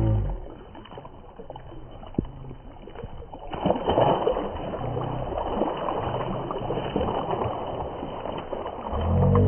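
A large catla thrashing and splashing at the water's surface as it is scooped into a landing net, the heavy splashing starting about three and a half seconds in. A brief low-pitched sound is heard at the start and again near the end.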